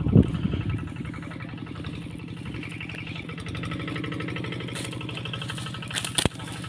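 Tractor engine running steadily with an even, rapid beat, louder for a moment at the start, and one sharp click a little after six seconds in.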